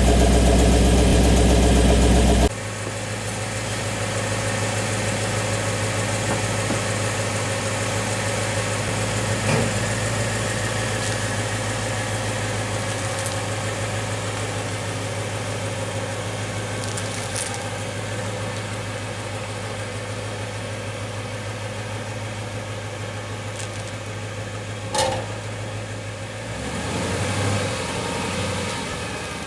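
2013 Ford Mustang Boss 302's 444 hp V8 idling through its exhaust. It is loud and deep for the first couple of seconds, then drops suddenly to a lighter, steady idle. There is a sharp click about 25 seconds in and a short swell in the engine note near the end.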